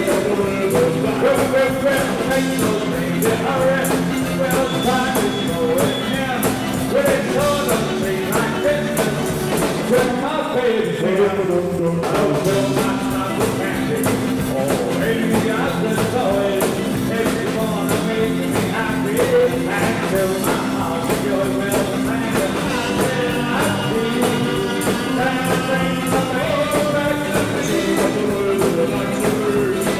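Rock and roll band playing live with drum kit and electric guitars, at a steady loud level. About ten seconds in, the cymbals drop out for a moment and a falling note slides down before the full band comes back in.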